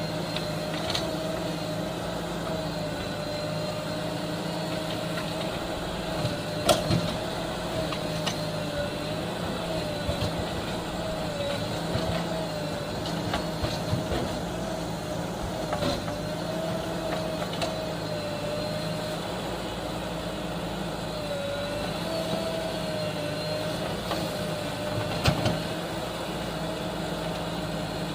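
Heavy vehicle diesel engine running steadily at a low speed, with its tone wavering slightly. A few sharp knocks sound over it, the loudest about a quarter of the way in and again near the end.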